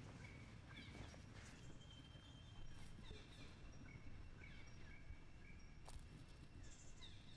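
Faint outdoor ambience: scattered short high chirps and a few light clicks over a low background rumble.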